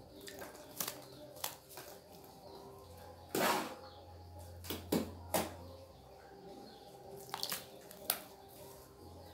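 Steel mason's trowel working wet cement mortar: scooping it from a metal tray and spreading and slapping it onto a mould, a run of irregular scrapes and slaps, the loudest a few seconds in, with a sharp tap near the end.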